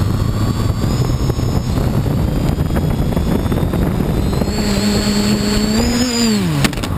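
Electric motors and propellers of an RC quadcopter, heard from its onboard camera: a loud steady buzz with a high whine that slowly rises. Late on, a strong hum climbs slightly, then drops steeply as the motors slow, with a sharp click just before the end.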